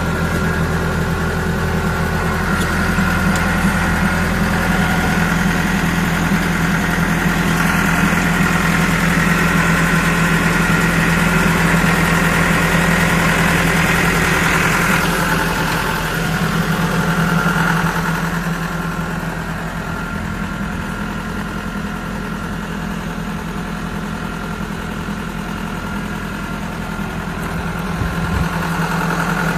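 Caterpillar 420D backhoe loader's four-cylinder diesel engine running steadily, a little quieter from about eighteen seconds in and louder again near the end.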